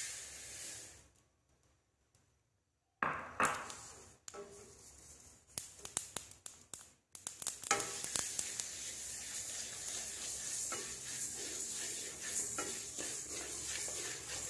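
Black sesame seeds poured from a bowl into a dry aluminium wok with a brief rattling hiss. Then the seeds are stirred and toasted with a wooden spatula, a steady scraping hiss with many small ticks against the metal.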